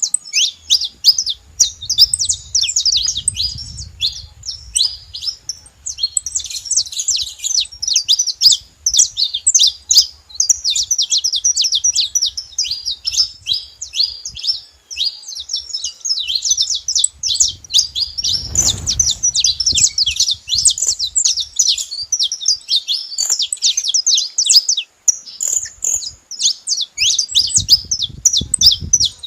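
Several saffron finches calling and singing together: a dense, continuous chatter of rapid high chirps and trills overlapping one another.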